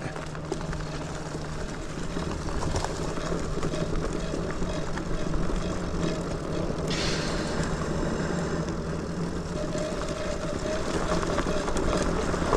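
Lectric XPeak 2.0 electric bike rolling along a hard-packed dirt trail: tyre and frame rumble with a faint steady motor whine. A louder rush of noise comes in about seven seconds in.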